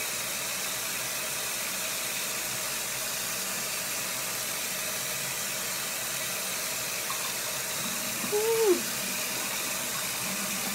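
Bathroom sink tap running, a steady even rush of water. A brief voice sound about eight and a half seconds in.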